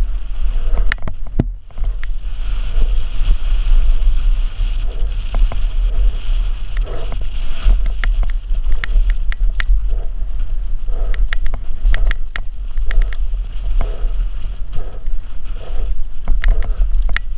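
Mountain bike running fast down a rough dirt trail: wind buffeting the helmet-mounted microphone, with the bike rattling and clattering over bumps and the tyres hissing on loose dirt for several seconds early on.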